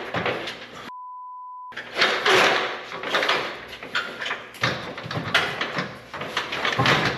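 A censor bleep, a steady beep of under a second about a second in that replaces the audio, then an extension ladder being shifted against the wall: scraping and clattering with several sharp knocks.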